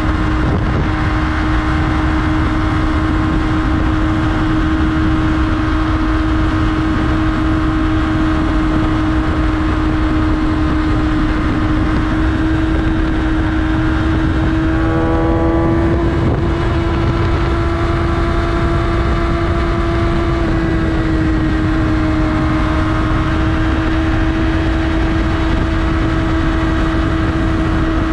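Yamaha R6 sport bike's inline-four engine running at a steady cruising pitch under a constant rush of wind on the microphone. About halfway through, a brief stepped tone falls in pitch.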